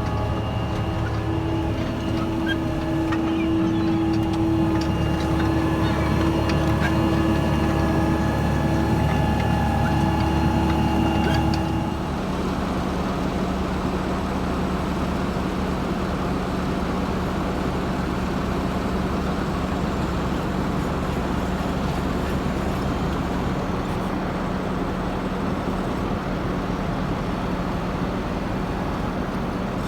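Fendt Vario tractor engine running steadily under load while ploughing, with several steady tones over its running. About twelve seconds in, the sound changes abruptly to a different steady engine note with one low tone.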